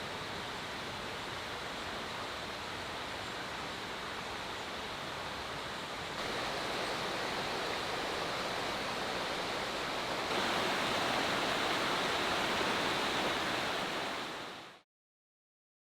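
Steady rushing noise, a little louder after about six seconds and again after about ten, fading out into silence about a second before the end.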